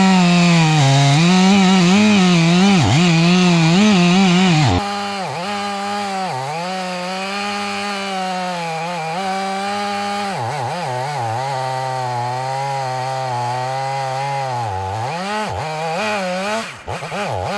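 Two-stroke chainsaw running at full throttle in an Alaska chainsaw mill, ripping lengthwise through a log. The engine note holds high and steady, dipping briefly in pitch now and then as the chain loads up in the wood. The level drops suddenly about five seconds in, and the pitch wavers near the end.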